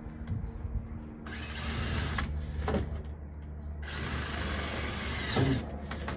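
Cordless drill on a CAMO DRIVE stand-up tool driving Camo Edge deck screws into cedar deck boards, two runs of a couple of seconds each. Each run ends in a sharp clunk as the screw seats; the second clunk is the loudest.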